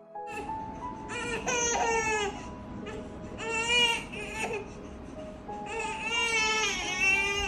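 A baby crying three times, each cry a second or more long, while lying on its tummy, over soft background music with steady held notes.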